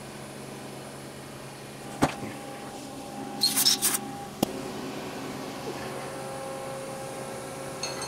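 Hand reamer in a T-handle wrench being worked in a dowel-pin hole in a metal block and drawn out: a sharp metallic click about two seconds in, a short scraping rattle around three and a half seconds, and another click just after, over a steady machine hum.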